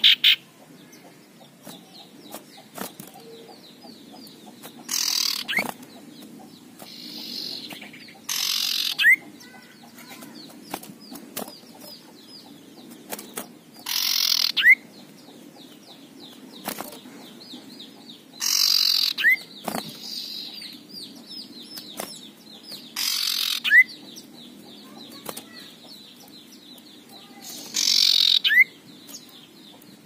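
Male common iora giving harsh, rasping scold calls (ngekrek): about six short raspy bursts spaced every four to five seconds, most ending in a brief upward whistle.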